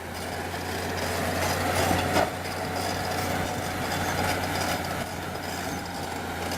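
Heavy earthmoving machine's engine running steadily, with one brief louder knock about two seconds in.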